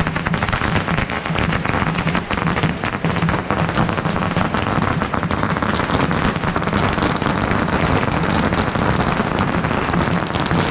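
Strings of Chinese firecrackers going off in a dense, continuous crackle, thickest in the first few seconds.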